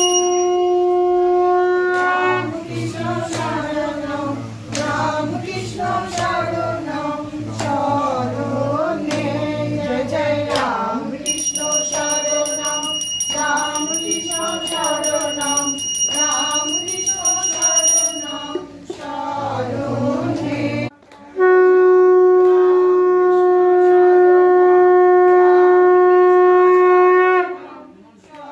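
Conch shell (shankha) blown in long, steady, loud blasts at the puja: one at the start and another held for about six seconds near the end. Between the blasts come wavering voices, with a high steady ringing tone for several seconds in the middle.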